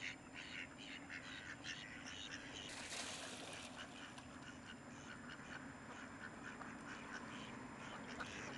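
A flock of mallard ducks quacking faintly, short calls coming one after another. A brief rush of noise comes about three seconds in.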